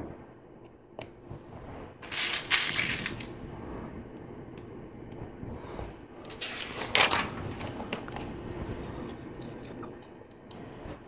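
LEGO Technic plastic parts being handled: scattered small clicks, with two louder bursts of plastic clatter lasting about a second each, one about two seconds in and one about seven seconds in.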